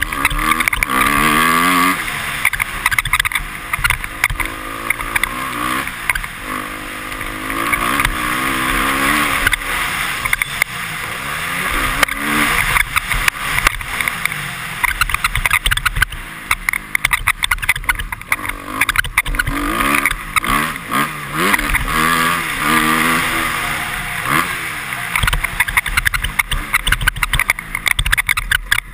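2013 Honda CRF250R's single-cylinder four-stroke engine revving up and falling back again and again as it is ridden hard, with wind rushing over a helmet camera. The helmet visor squeaks over the bumps.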